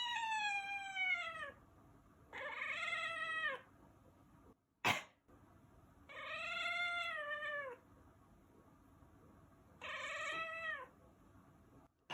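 A cat meowing four times in reply to a person's sneezes, each meow a drawn-out call that bends down in pitch at its end. One short, sharp sneeze comes about five seconds in, between the second and third meows.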